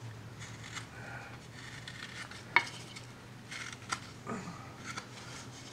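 Soft V tool cutting short strokes into a wooden carving: quiet paring and scraping with a few sharp clicks, the loudest about two and a half seconds in, over a steady low hum.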